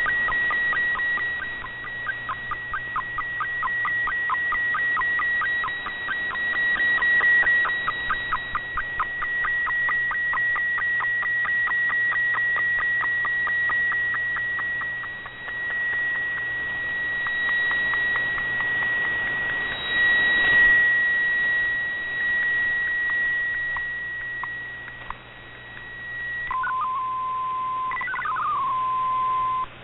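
MFSK64 digital data signal from a shortwave broadcast, received on a communications receiver in AM: a stream of electronic tones with a steady high tone and rapid regular pulsing over band hiss. The signal fades and comes back, which is what garbles the decoded text. Near the end it changes to a steady lower tone with short gliding chirps.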